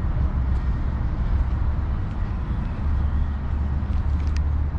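Steady low rumble of wind buffeting the microphone, with a faint outdoor hiss above it; the rumble grows stronger about three seconds in.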